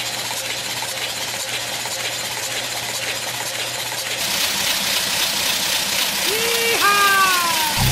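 A big-block Chevrolet 496 stroker engine being turned over on a Simtester rig during its run-in, its open roller-cam valvetrain clattering with rapid fine ticking over a steady hum. It grows louder about halfway. Near the end a short high tone slides downward.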